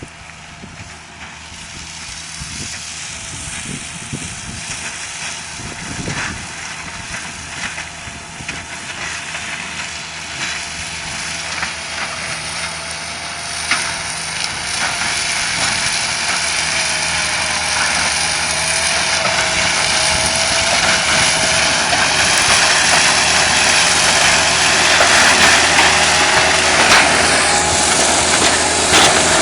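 Skid steer diesel engine running with a Seppi SMO 200 mulcher attachment, a steady hum with a wavering whine that grows steadily louder throughout, with a few short knocks.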